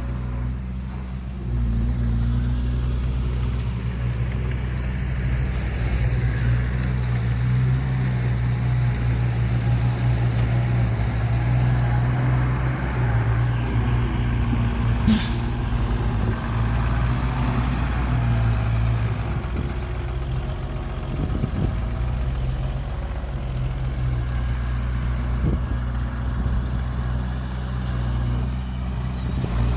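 Heavy diesel engine of earthmoving machinery at a loading site running steadily, easing off briefly about two-thirds through. A brief sharp sound about halfway through.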